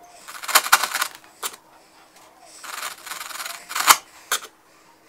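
Wood chisel pushed by hand paring waste from a dovetail joint down to the gauge line: two bouts of crisp slicing and crunching of wood fibres, the second ending in a sharp crack, with a short click about a second and a half in and another snap just after four seconds.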